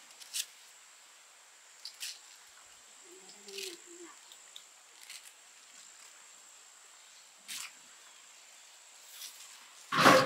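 Scattered light clicks of wooden tongs against boiled corn cobs and the rim of a steaming cooking pot, then a sudden loud clunk near the end with a short ring as a cob is dropped into an aluminium basin.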